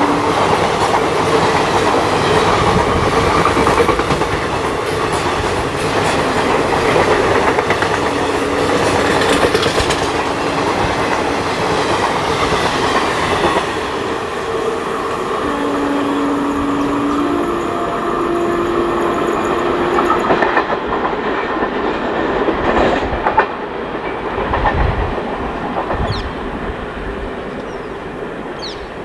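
Indian Railways passenger coaches passing close at speed, wheels clattering rhythmically over the rail joints, with a few steady tones sounding briefly over the rush. About two-thirds of the way through the sound drops to a quieter, duller rumble of a train further away.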